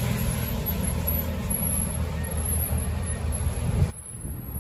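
Refrigerated box truck driving past at close range, its engine a steady low rumble over street traffic noise. The sound drops away suddenly about four seconds in.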